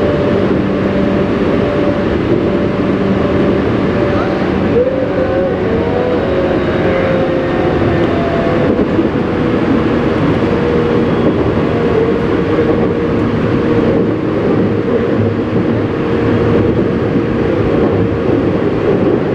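Tobu Railway electric commuter train running at speed, heard from inside the car: a steady wheel-on-rail rumble with low steady hums, and a short wavering whine about five seconds in.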